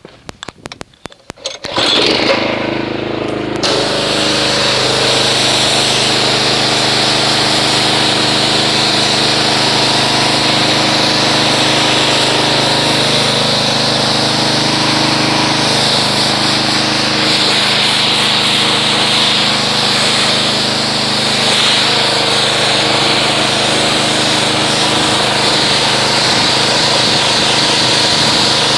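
Pressure washer starting up about two seconds in and then running steadily, its hum mixed with the hiss of the water spray as it rinses foam off a car.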